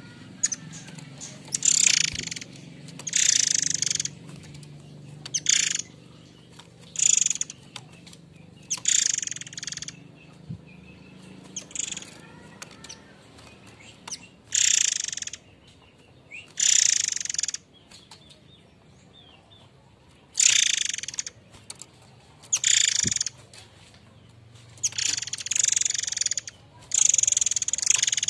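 Murai air mancur giving its harsh, rasping calls: about a dozen hoarse, noisy bursts, each up to a second or so long, repeated at irregular intervals.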